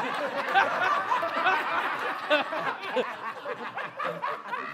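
Several people laughing and snickering together at a joke, their voices overlapping.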